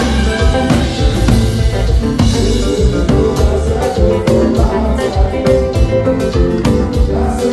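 Haitian konpa band playing: guitar over heavy bass and a steady beat.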